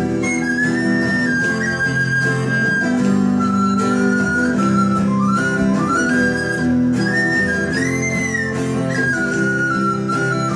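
A recorder playing a melody over two acoustic guitars strumming chords.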